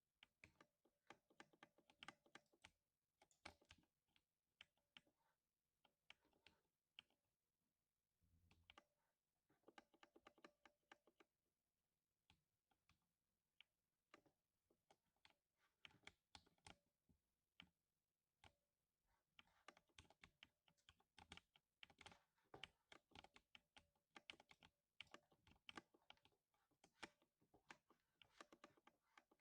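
Typing on a lubed 60% mechanical keyboard: quiet, deep thocking keystrokes in quick runs with short pauses in between. There is one dull low thump about eight seconds in.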